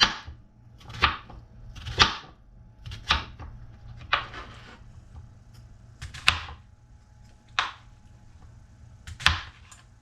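Knife slicing cucumbers into rounds: about eight crisp cuts, roughly one a second, with a longer pause midway.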